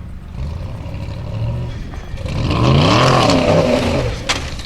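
Willys CJ5 off-road racer's engine revving: a low running rumble swells about two seconds in into a loud rev that rises and falls in pitch, then drops back. A sharp knock comes near the end.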